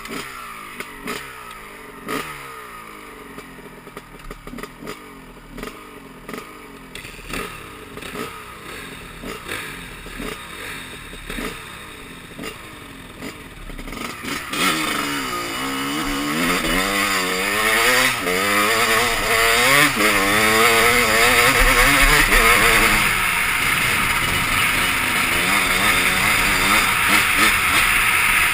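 Honda CR250 two-stroke dirt bike engine. For the first half it is blipped in short bursts, its pitch falling back after each one about once a second. About halfway it grows louder and revs up and down repeatedly as the bike is ridden hard.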